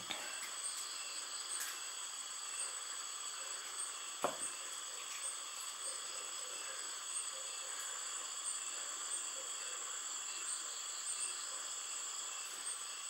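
A chorus of insects such as crickets trilling steadily at a high pitch, with one soft knock about four seconds in.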